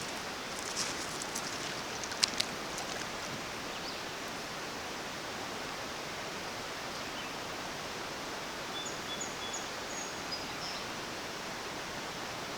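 Steady rushing of a mountain trout stream. A few sharp clicks come in the first couple of seconds, and faint high chirps come about nine to ten seconds in.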